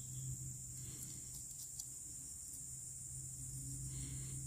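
Faint, steady, high-pitched chorus of insects, with a low steady hum underneath that fades out near the end.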